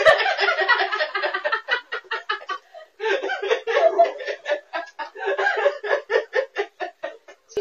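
A person laughing hard: a long, rapid run of laughs with a short break about three seconds in.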